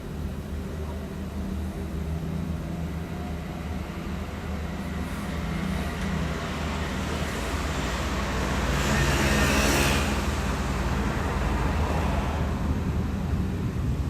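A road vehicle passing by, its noise swelling to loudest about nine to ten seconds in and then fading, over a steady low engine hum.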